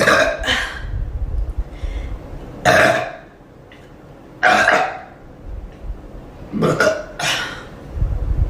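A young woman burping over and over: about six short, loud burps, the first two and the last two coming in quick pairs.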